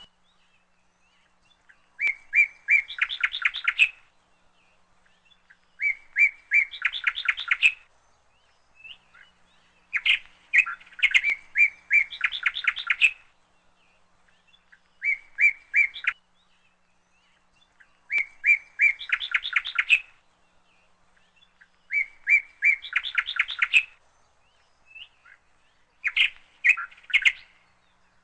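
A bird singing: short phrases of a few clear chirps running into a fast trill, repeated seven times about every four seconds with quiet gaps between.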